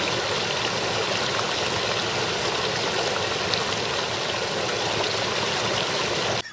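Small ice-bound brook babbling steadily over rocks between shelves of ice and snow. The sound cuts off abruptly just before the end.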